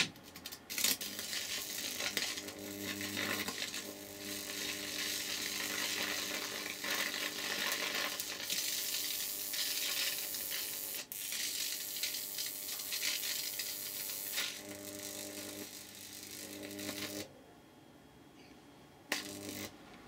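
High-voltage arcing across the bug zapper's grid, fed by microwave oven transformers: a continuous sizzling crackle over a steady transformer hum, as bits of Leylandii caught in the grid keep the arc going. It stops suddenly about 17 seconds in, with one short crackle again near the end.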